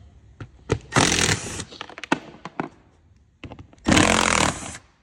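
BMW F10 plastic interior door trim panel being pulled off the door: two loud scraping, rustling bursts, about a second in and again near the end, with sharp clicks of the retaining clips around them.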